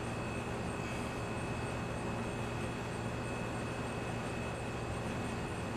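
Steady background hum and hiss with a faint high whine, unchanging throughout; no distinct handling clicks or knocks stand out.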